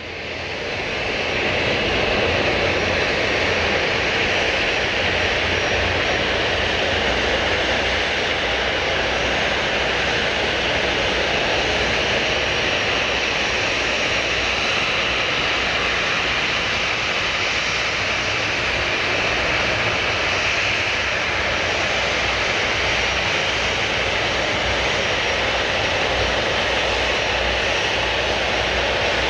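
Jet airliner engines running with a steady, even rush of noise and a faint thin high whine, fading in over the first couple of seconds and then holding level.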